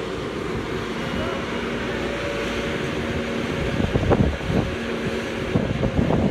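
Engine of the crane lowering a sailboat in slings, running steadily with a low hum. Wind buffets the microphone in uneven gusts in the second half.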